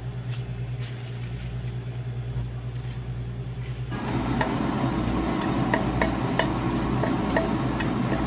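A steady low kitchen hum. From about four seconds in, a louder rushing noise with light clicks and scrapes as thick red glaze sauce is scraped out of a metal bowl into a frying pan.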